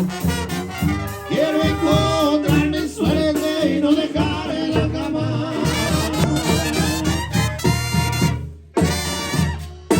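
Mexican banda playing live: brass with drums, and a voice singing over it early on. The music briefly drops out near the end and comes back in.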